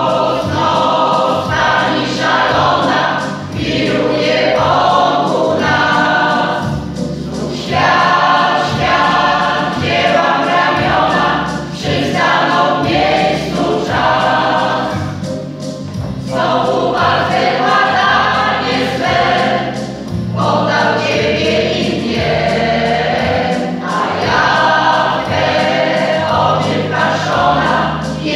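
Mixed choir of women and men singing a song, in phrases of about four seconds with short dips between.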